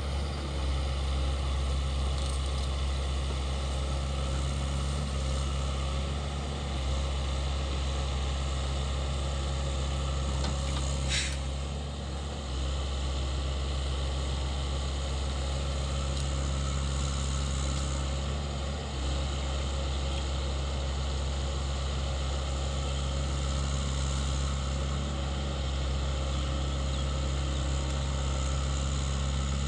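SANY SY75C excavator's diesel engine running steadily while the machine works. A short, sharp high sound cuts in briefly about eleven seconds in.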